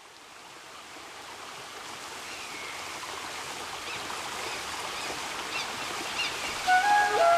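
Steady outdoor background noise, an even rushing hiss that fades in from silence and grows louder, with a few faint chirps. Near the end, music with long held notes begins and becomes the loudest sound.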